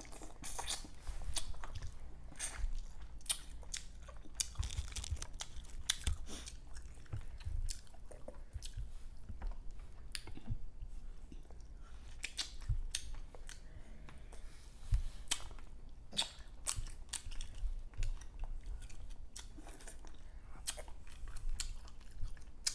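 Close-up chewing and smacking of balut, the boiled fertilized duck egg, with many irregular wet mouth clicks and small crunches.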